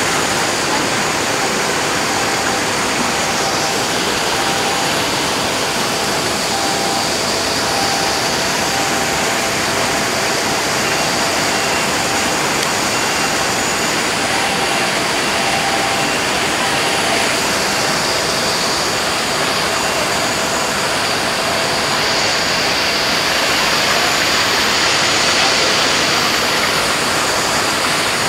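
Steady rush of water pouring down a garden waterfall.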